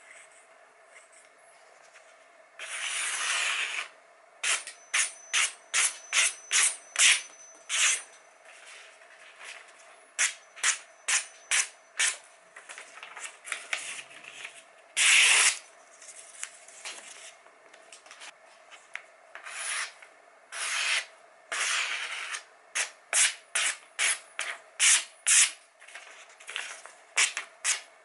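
Freshly sharpened kitchen knife slicing through paper: runs of quick hissing cuts, about two to three a second, with a few longer, slower slices between them.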